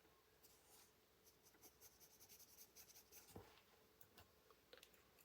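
Faint scratching of a colored pencil on paper, in quick repeated short shading strokes.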